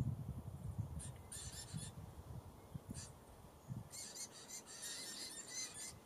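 Diamond firetail nestlings begging at the nest while an adult is in with them: short bursts of high, rapid squeaky calls about a second in and around the middle, then a longer run of calls in the last two seconds. An uneven low rumble sits under the first part.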